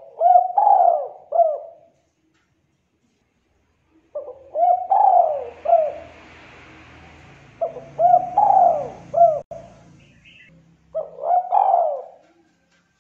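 Spotted dove singing a 'culhu kuk' type song: four phrases a few seconds apart, each a quick run of three or four coos.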